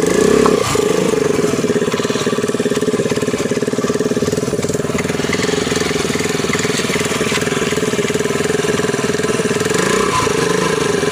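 Honda Dio scooter's single-cylinder engine idling with rapid, even exhaust pulses, its stock silencer modified by taking out a nut so that it sounds like a Royal Enfield Bullet. It is slightly louder for the first half-second, then runs steadily.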